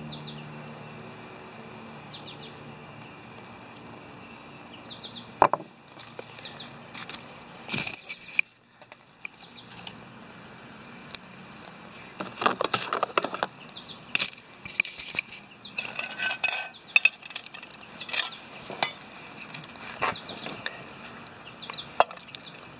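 Metal clinks and knocks of a canteen cup, spork and small folding stove being handled, mixed with bursts of crinkling and rustling. These begin about five seconds in, after a faint steady buzz.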